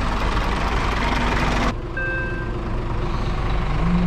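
Scania lorry's diesel engine running as the tractor unit pulls the extendable container trailer slowly forward to slide its locking pins into position. The hiss drops off suddenly a little under halfway through, and a short electronic beep sounds just after.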